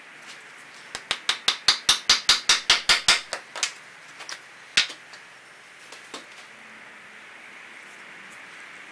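A quick run of about a dozen sharp knocks, roughly six a second for about two seconds, followed by three or four single knocks spaced out over the next few seconds.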